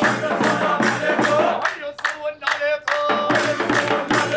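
A group singing a wedding song over rhythmic hand clapping, the claps coming several times a second in a steady beat.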